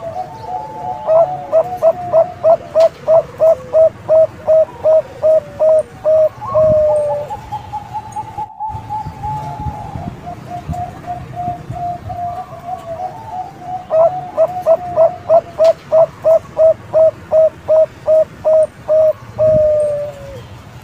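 Bangkok-type zebra dove (perkutut) cooing: two long bouts of rapid, evenly spaced coo notes, about two to three a second, each ending in a longer drawn-out note. Between the bouts runs a softer, faster rolling series of notes.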